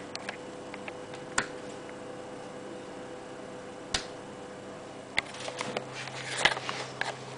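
Rocker power switch on the back of an Energy ACT SUB powered subwoofer clicking, once about four seconds in and again about a second later. A low steady hum from the subwoofer then sets in. Rustling and clattering handling noise follows and is loudest near the end.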